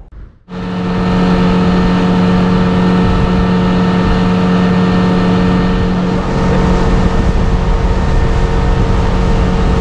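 Suzuki outboard motor running steadily at speed, with the rush of wind and water over it. It starts abruptly about half a second in, and the engine note shifts slightly about six seconds in.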